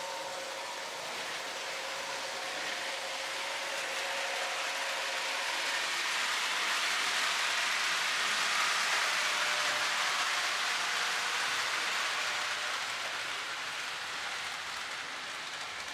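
Lionel O-gauge toy trains running on three-rail track, making a steady rattling clatter of wheels and motors. It swells in the middle, as a train comes close, and eases off near the end.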